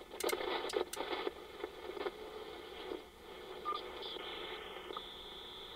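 Icom IC-7300 HF transceiver's speaker giving out band static while the receiver is tuned up across the shortwave band in AM mode towards 15 MHz. There are short clicks in the first second or so, and a steady high whistle comes in near the end.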